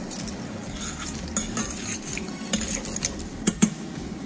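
Clams in their shells tipped into a stainless steel sauté pan of pasta and sauce, then stirred in with a metal spoon, shells and spoon clinking against the pan in a run of small clicks. Two sharper knocks come about three and a half seconds in.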